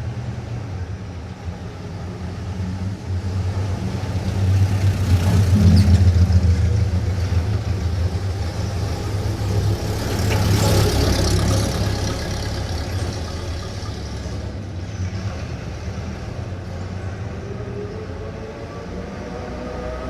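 1940s-style suburban street traffic: a continuous low engine rumble with vehicles passing, two of them louder, about five and ten seconds in. Near the end an engine tone rises in pitch as a vehicle accelerates.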